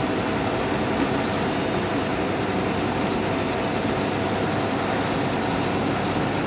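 Steady drone of a semi-truck driving, heard inside the cab. The diesel engine, tyres and wind blend into one even noise.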